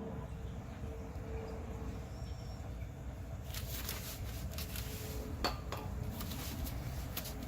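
Light metallic clinks and taps from brake parts and tools being handled, a cluster of them starting about halfway in with one sharper knock a little later, over a steady low rumble.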